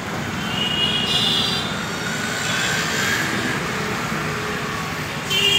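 Sonex 303 walking-foot industrial sewing machine running on its belt-driven servo motor, stitching a leather strip, with a motor whine rising in pitch about two seconds in.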